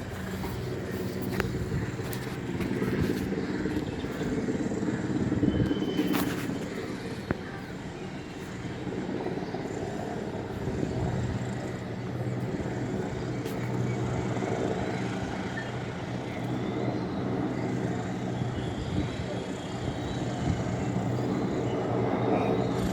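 Helicopter flying by, a steady droning hum from its engine and rotor that swells a little around the middle and again near the end.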